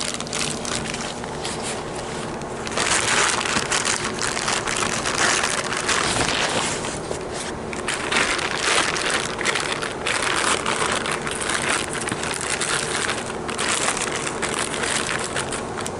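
Rustling and crinkling from a part being handled, in stretches of a few seconds with short lulls, over a faint steady hum.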